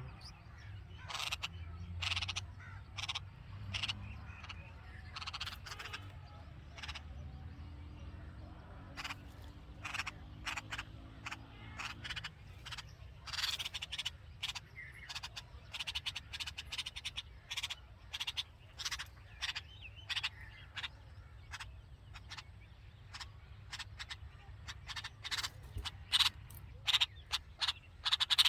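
Red-vented bulbuls chirping at the nest: many short, sharp chirps, some in quick runs, coming faster and louder near the end. A low rumble runs underneath.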